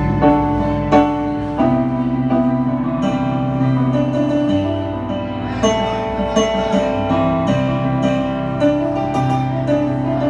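Live band playing an instrumental passage with no singing, sustained chords from the stage keyboard changing every second or two.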